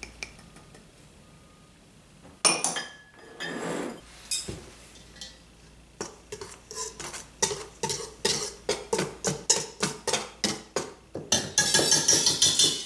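Wire whisk beating dry ingredients in a stainless steel mixing bowl, the wires scraping and clinking against the metal in rapid strokes about three a second, starting about halfway through and turning into a faster, denser scraping near the end. A single sharp clink comes about two seconds in.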